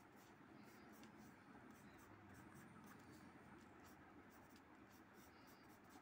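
Faint scratching of a graphite pencil on drawing paper in quick, short, repeated strokes.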